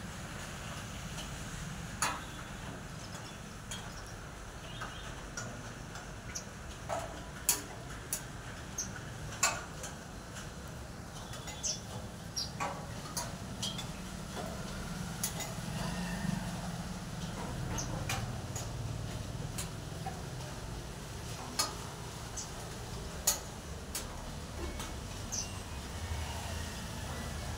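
Irregular light clicks and taps, a dozen or more spread unevenly, over a steady low rumble.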